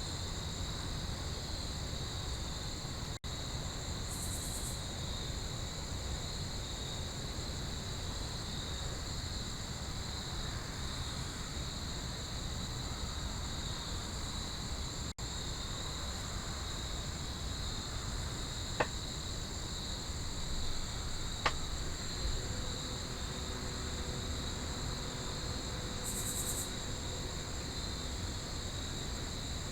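Steady evening chorus of crickets and other insects, two unbroken high-pitched trills over a low background hiss. Two faint sharp clicks sound a little past the middle.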